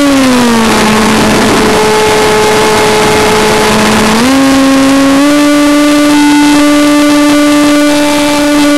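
Electric motor and propeller of a Multiplex FunJet Ultra model jet whining, heard from an onboard camera. The pitch drops in the first second as the throttle comes back, holds lower under a rush of air, then climbs again about four seconds in and once more about a second later.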